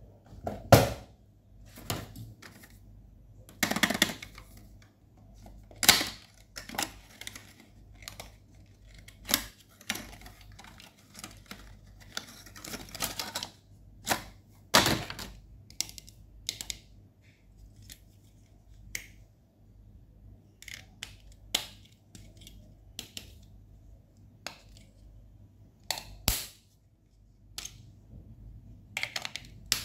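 Hard plastic packaging and a plastic train-shaped pencil sharpener handled by hand: scattered clicks, taps and crinkles, with a sharper snap every few seconds as the box is opened and the sharpener is pulled apart.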